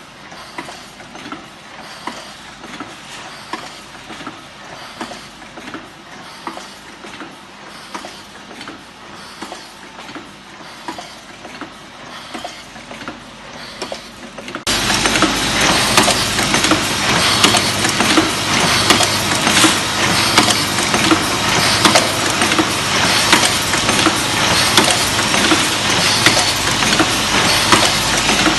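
Automatic nail polish filling and capping machine running, a steady clatter of rapid small clicks and knocks from its mechanisms. About halfway through it jumps abruptly louder and stays there.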